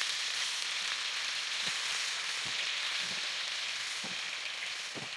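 Chicken pieces frying in hot oil in a pan: a steady, loud sizzle with a few soft knocks.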